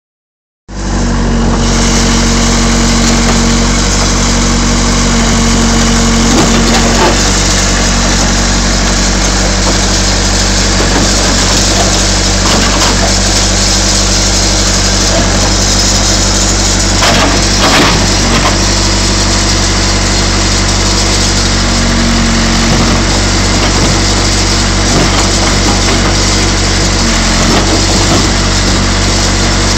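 Case 580 Super E backhoe's diesel engine running steadily under load, with scattered cracking and crunching as the steel of a GMC truck box is crushed.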